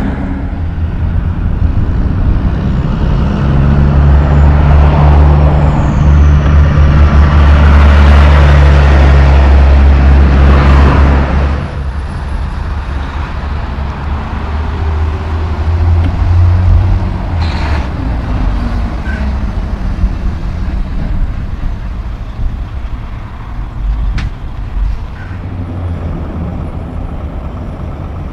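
Mack truck's diesel engine running with a deep, steady drone, loudest for the first half. It drops off sharply about twelve seconds in and carries on running more quietly.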